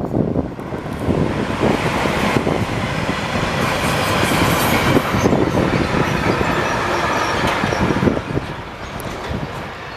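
A train passing on the line: wheels rolling over the rails with many rapid clicks. The sound swells about two seconds in, is loudest in the middle and eases off near the end.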